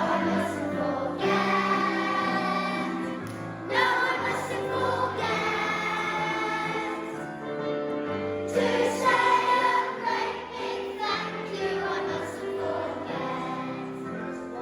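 A choir singing a song over musical accompaniment.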